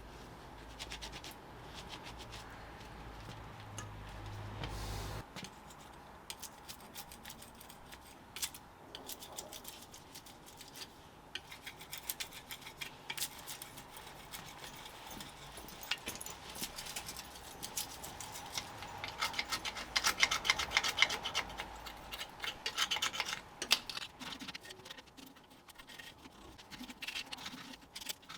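Hand sanding of iron railings with a sanding pad: quick, irregular back-and-forth rubbing strokes on the metal, loudest and fastest about twenty seconds in.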